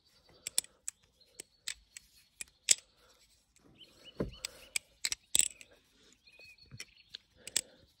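Butterfly knife (balisong) being flipped through an extended Y2K trick: a string of sharp, uneven clicks and clacks as the handles swing around and strike each other and the hand, with a duller knock about halfway.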